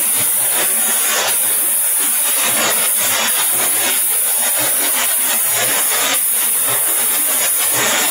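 Automatic rotary polishing machine running, its buffing wheel working a stainless steel mug body: a steady, loud rushing hiss of machinery.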